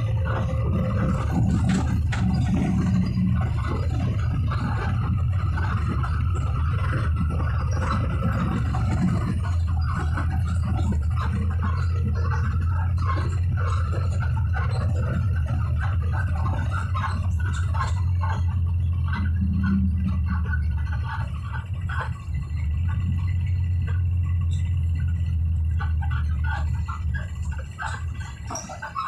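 Steady low rumble of a city bus's engine and road noise, heard from inside the passenger cabin as it drives; the rumble eases briefly about three-quarters of the way through.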